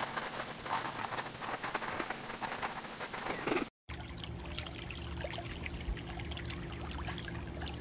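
A cat digging in a litter tray, its paws scraping and scattering granular litter in a rapid run of small scratchy clicks that stops suddenly a little under four seconds in. After a brief gap there is a quieter steady low hum with a few faint clicks.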